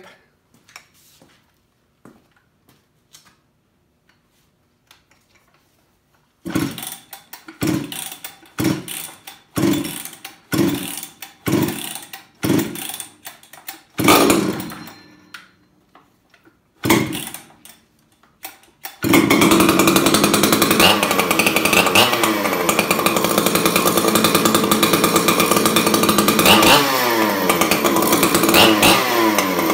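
Husqvarna 266 XP two-stroke chainsaw, running through a custom-built exhaust pipe in place of its muffler, being pull-started for the first time on the new pipe. A string of starter-cord pulls about a second apart, then it catches about 19 s in and runs loud and steady, with throttle changes near the end.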